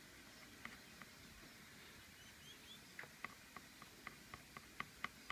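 Faint light clicks of a screwdriver tip dabbing paint onto a plastic car grille. They are scattered at first, then come at about four a second and a little louder in the second half, with a couple of faint high squeaks around the middle.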